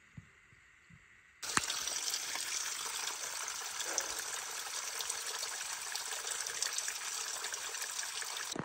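Spring water streaming and dripping off a mossy rock face onto wet leaves and into a plastic bottle held under it: a steady splashing that starts suddenly about a second and a half in, after near silence.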